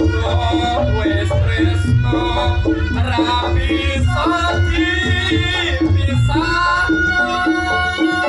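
Reog Ponorogo ensemble music played loud through a sound system: kendang drumming and gongs over heavy bass, with a bending, wavering melody line on top.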